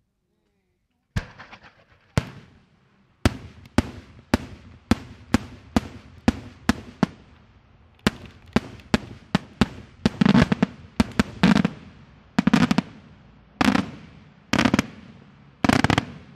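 Daytime aerial fireworks: shells bursting overhead in sharp, loud bangs, each with a trailing echo. The bangs start about a second in, first singly, then at about two a second. From about ten seconds in they give way to longer, dense crackling bursts at roughly one a second.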